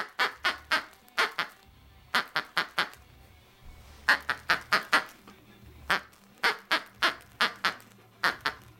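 Squeaker inside a plush goose dog toy squeezed by hand over and over: about two dozen short, sharp squeaks in quick runs of two to six, with brief pauses between runs.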